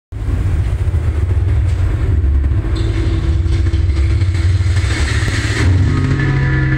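Intro of a dance track: a deep, steady rumble with a hissing swell that rises and then cuts off about five and a half seconds in, as sustained musical notes come in.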